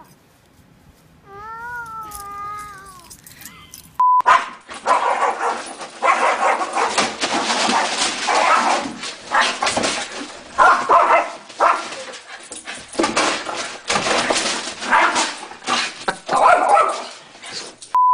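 A small dog barking over and over in quick loud bursts, after a short falling whine in the first few seconds. A short steady electronic beep sounds about four seconds in and again at the very end.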